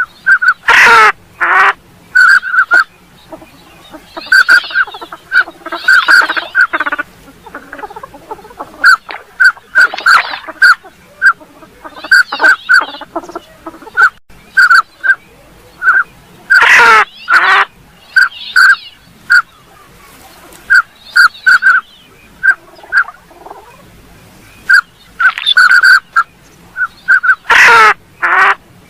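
Northern pintail calls used as a duck-hunting lure: many short whistled notes, often in quick runs of two or three. About every seven to ten seconds, louder and coarser calls break in.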